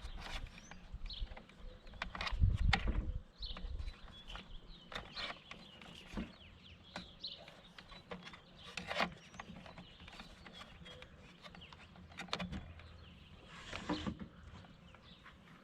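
Scattered knocks, clicks and rustles of hands handling gear and wiring on a boat, with a louder low thumping about two to three seconds in.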